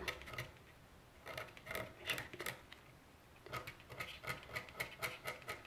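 Stylus scraping the black coating off a scratch-art engraving board in quick short strokes. There are two runs of scratching, one starting about a second in and the other from about three and a half seconds in.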